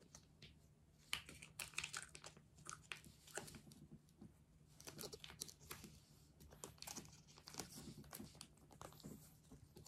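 Plastic snack wrapper crinkling and tearing as it is handled and opened by hand, a long string of faint, quick crackles.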